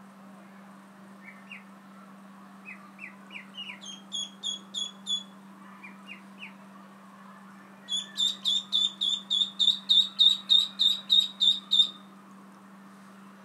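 Ducklings peeping: scattered short, high peeps in the first half, then from about eight seconds in a fast run of loud peeps, roughly four a second, lasting about four seconds.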